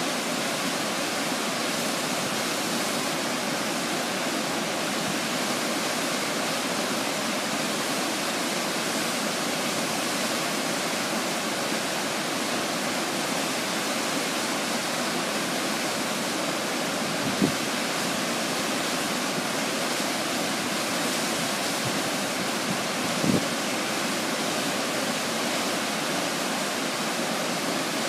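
Shell Falls on Shell Creek pouring in heavy flow: a steady rush of falling whitewater. Two brief low thumps sound in the second half.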